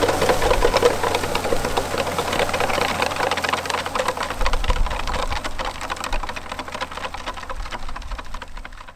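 Ford TW-35 tractor's diesel engine running under load while a New Holland 195 box manure spreader's beaters fling manure, a fast, steady clatter of clicks over the engine. The sound fades gradually as the rig pulls away.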